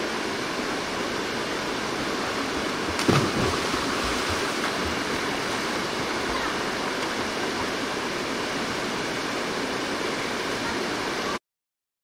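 Rushing water of a mountain valley stream's rapids, a steady rush, with one sharp thump about three seconds in. The sound cuts off suddenly near the end.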